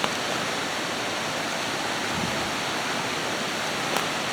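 Steady rushing of a rain-swollen creek and waterfall in full flow, with two faint clicks, one just after the start and one near the end.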